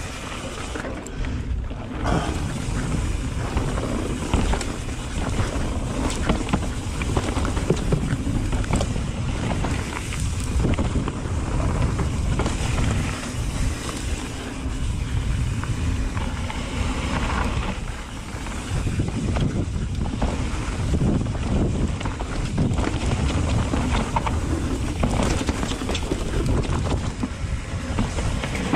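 Mountain bike descending a rough dirt trail at speed: wind buffeting the microphone over the tyres rolling on dirt. Frequent rattles and knocks come from the bike as it rides over rocks and roots.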